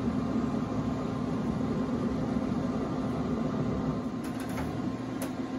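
Steady hum of a Pit Boss 7 Series vertical pellet smoker's fan running, with a few faint clicks about four to five seconds in.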